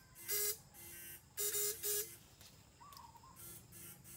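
Electric fishing shocker buzzing in short loud bursts as current is pulsed into the stream through its electrodes: one buzz about a third of a second in, then two close together around a second and a half in. A fainter pulse repeats about twice a second underneath.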